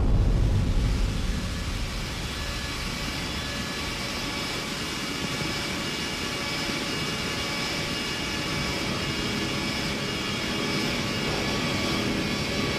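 A deep rumbling boom dying away over the first second or two, then a steady rushing drone with faint held tones: an ominous film-soundtrack drone.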